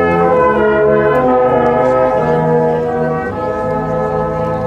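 Brass band playing slow held chords, several instruments sounding together, with the harmony changing every second or so.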